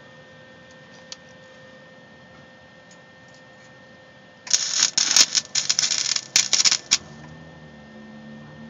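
Welding arc crackling and spitting in several short bursts that start and stop over about two and a half seconds, beginning about halfway through. Before it there is only a faint steady hum.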